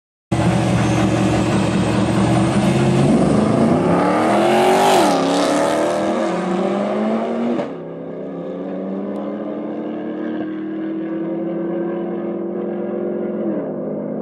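Two cars, a Jeep SUV and a Mitsubishi Lancer Evolution, launching in a drag race at full throttle, engine pitch rising with a gear change about five seconds in. About eight seconds in the sound cuts to a quieter, steady engine drone that falls in pitch near the end as the Jeep backs off early.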